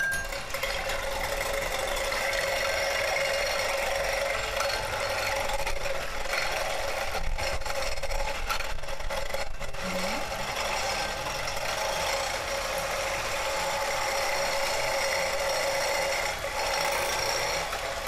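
Electric hand mixer running steadily at one speed, its beaters whisking eggs in a glass bowl.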